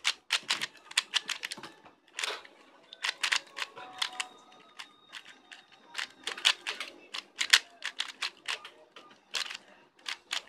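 Plastic speedcube being turned by hand, its layers clacking in quick runs of clicks with short pauses between runs.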